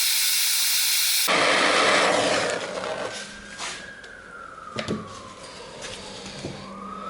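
Torch flame hissing loudly, heating rusted tailgate hardware to loosen it. After about two and a half seconds the hiss dies away, leaving a few light metal taps and a faint whistle that falls and then rises.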